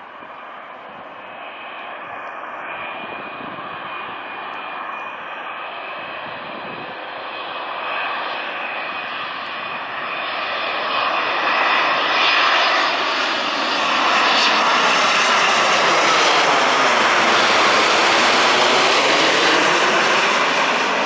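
Boeing 787 Dreamliner's twin turbofan engines on landing approach: jet engine noise with a steady high whine on top. It grows steadily louder as the airliner flies in low overhead and is loudest as it passes, easing a little at the end.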